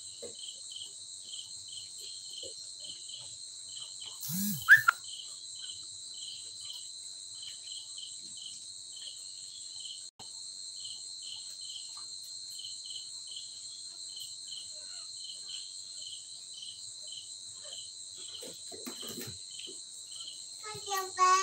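Crickets and other insects singing: a steady high-pitched drone with a regular chirp about three times a second. A brief sharp sound about four and a half seconds in is the loudest thing, and a short voice-like sound comes near the end.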